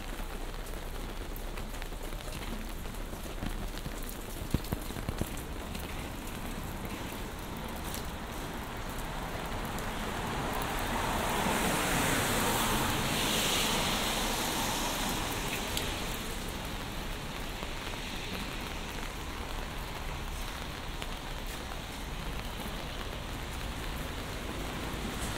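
Steady rain falling on an umbrella and on wet city pavement, an even hiss with a few sharp drop taps about five seconds in. The hiss swells louder for a few seconds around the middle.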